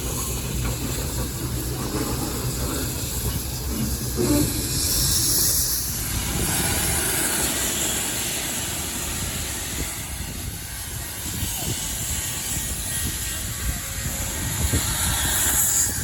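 Conway Scenic Railroad train running on the rails: a steady low rumble with a hiss on top.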